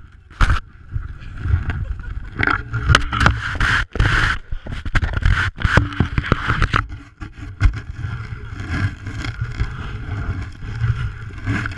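Wind buffeting a GoPro's microphone as a rumble, with the camera knocking and rubbing against snow-covered ski jackets and mittens as it swings on a handheld pole; the knocks come thickest a few seconds in.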